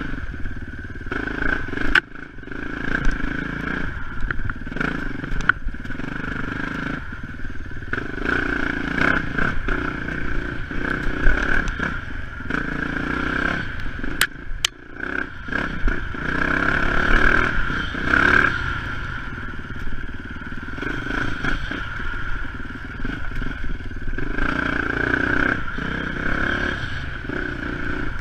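Off-road motorcycle engine running steadily while riding a rough dirt trail, with clattering and sharp knocks here and there from the bike going over bumps.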